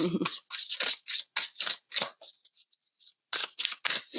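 A deck of tarot cards being shuffled by hand: a quick, uneven run of papery snaps and flicks, with a short pause a little past the halfway point.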